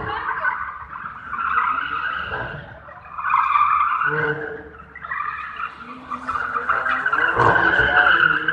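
Tyres of a drifting BMW squealing in several long bursts, rising and falling, loudest near the end, with the car's engine running underneath.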